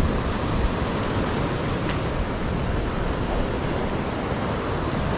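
Ocean surf washing and churning over rock ledges close by: a steady rush of breaking water.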